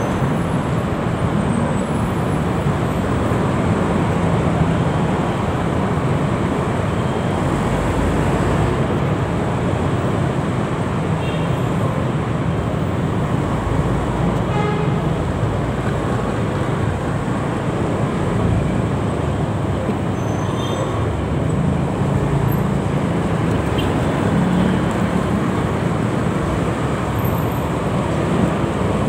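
Dense, slow-moving city traffic heard from a motorcycle in the middle of it: a steady mix of motorcycle and scooter engines, a city bus close ahead, and road noise.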